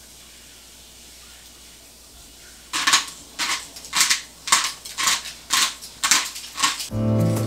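Hand-twisted pepper grinder grinding pepper in short crackly strokes, about two a second, starting a little under three seconds in. Acoustic guitar music comes in near the end.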